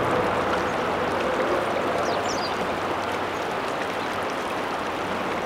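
Steady rush of river water flowing over rocks, with a short bird chirp about two seconds in.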